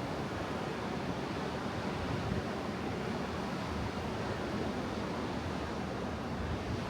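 Atlantic surf breaking and washing on a beach, a steady, even wash of wave noise with wind on the microphone.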